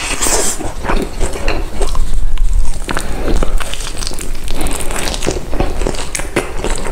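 Close-miked eating sounds: irregular crunching and wet chewing of food, with sharp crackles every fraction of a second.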